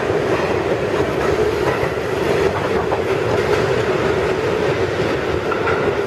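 R46 subway train pulling out of the station and running away into the tunnel, its wheels and motors making a steady, loud running noise on the rails.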